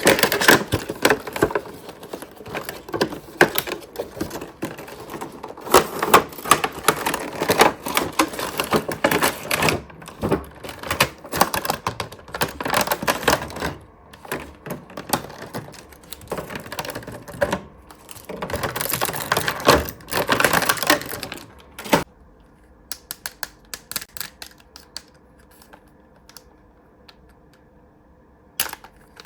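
Toy packaging being handled and opened by hand: a dense run of rapid crackles and clicks of plastic and cardboard for about twenty seconds, then only occasional soft clicks.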